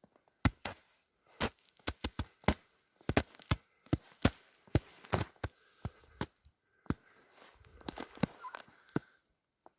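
Frozen river ice cracking and snapping underfoot: a long run of sharp, irregular cracks, some in quick pairs, with short silent gaps between them. The ice makes such noise when it is not very thick.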